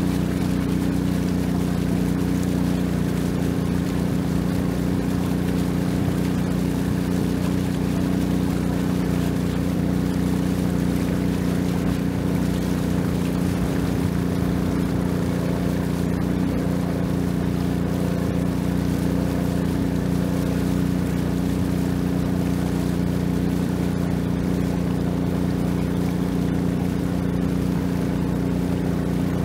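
Long-tail boat engine running at a steady, unchanging pitch.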